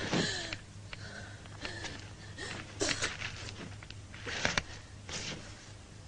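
Laboured gasping breaths and short strained moans from a person lying wounded, coming in separate bursts several times, over a low steady hum.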